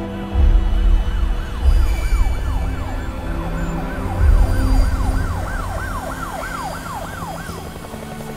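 Emergency-vehicle siren in a fast yelp, its pitch sweeping up and down about three times a second, stopping near the end. Under it, dark low music with sustained tones and heavy bass hits.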